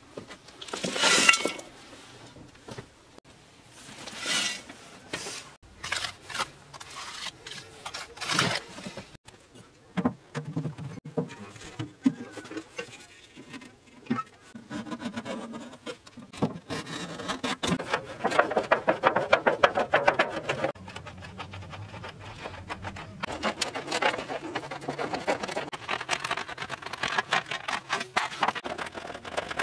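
Hand work on a mud-brick stove: a few broad rubbing and scraping strokes of mud against brick, then scratchy scraping and rustling as a cardboard sheet and metal pots are handled.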